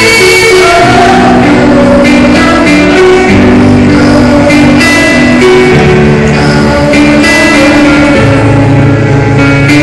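A woman singing into a handheld microphone over backing music, both amplified through a hall's sound system, with long held notes.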